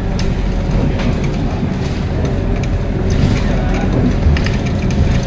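Scania K230UB city bus under way, heard from inside the cabin: its five-cylinder diesel engine and ZF Ecomat 6HP504C six-speed automatic gearbox running with a steady low rumble, over small rattles and clicks from the interior fittings.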